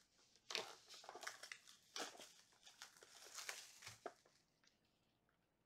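Plastic shrink wrap being pulled off a cardboard trading-card box, crinkling and crackling in a run of quick rustles for about four seconds, then dying away.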